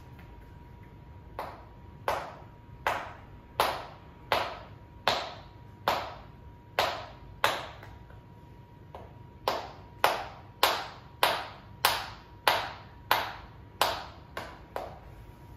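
Open-palm slaps of a shoulder massage on a seated person's shoulders, about one every 0.7 seconds, each a sharp smack with a short fading ring. There is a pause of about two seconds in the middle, then the slapping resumes at the same pace.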